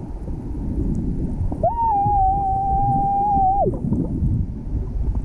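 A swimmer's voice held on one steady high note underwater, a squeal or sung tone made to attract dusky dolphins. It starts a bit over a second in, lasts about two seconds and drops away at the end, over a constant low rush of water on the underwater camera.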